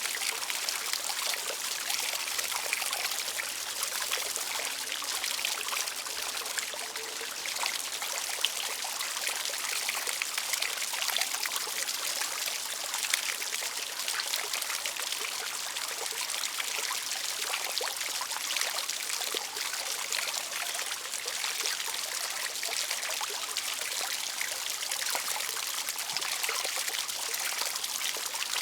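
Outdoor water fountain running: a steady splashing of falling water with a busy patter of small drops, even throughout.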